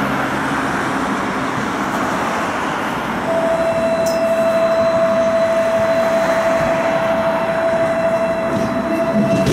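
Budapest tram running along its rails, heard from inside the car: a steady rumble and hiss of rolling, joined about three seconds in by a steady high-pitched squeal that holds at one pitch.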